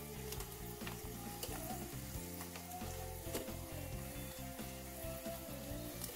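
Hot oil sizzling steadily as bakso goreng, balls of chicken, shrimp and tapioca dough, deep-fry in a small electric fryer pot, with scattered sharp clicks and crackles.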